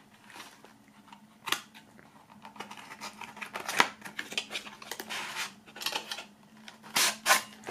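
Small cardboard box being opened by hand and a metal hip flask slid out of it: rustling and scraping of cardboard with scattered sharp clicks, two louder ones near the end.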